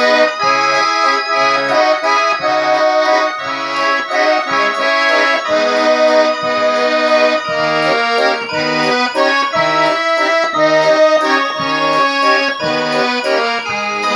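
Russian garmon (button accordion) playing a slow song melody in held notes over an even accompaniment of bass notes alternating with chords.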